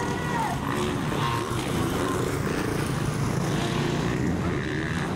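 Motocross bike engines running hard as riders race round a dirt track, the pitch rising and falling with the throttle.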